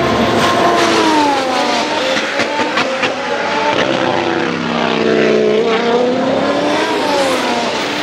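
Formula 1 cars' 1.6-litre V6 turbo-hybrid engines running at speed on the circuit. The engine note falls in pitch, dips low around the middle, climbs again, then falls near the end.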